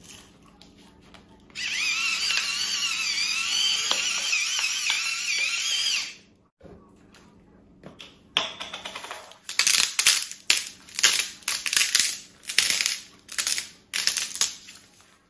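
Electric pepper mill grinding peppercorns, a steady motor whine lasting about four seconds. Then a salt shaker shaken in quick strokes, about two or three a second, for several seconds.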